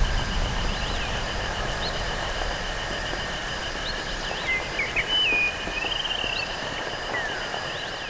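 Rainforest ambience made entirely with synthesizers: a steady rain-like hiss with pulsing high insect-like tones and scattered short chirping bird-like calls, including a longer warbling call around five to six seconds in. It fades down near the end.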